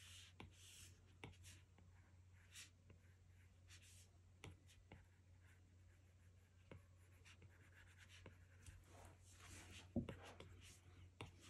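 Faint taps and short scratchy strokes of an Apple Pencil tip on an iPad Pro's glass screen, with a louder tap about ten seconds in.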